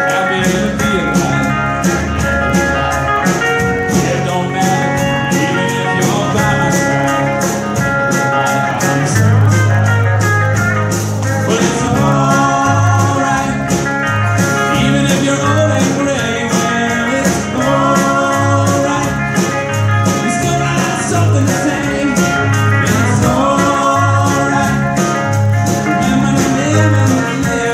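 Live band playing a song on bass guitar, acoustic-electric and electric guitars and keyboard, over a steady ticking beat. About nine seconds in, the bass settles into short repeated low notes.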